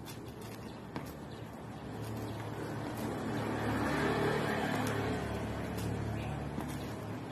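A motor vehicle passes on the street with a low engine hum, growing to its loudest about four seconds in and then fading. A few faint sharp taps, likely shoes landing on concrete, come before it and near the end.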